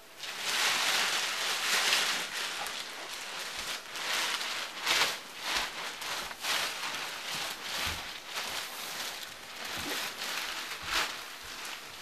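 Rough, crackly rustling and handling noise from things being gathered up off the floor close to the microphone. It starts suddenly and keeps going, rising and falling with many sharp crackles.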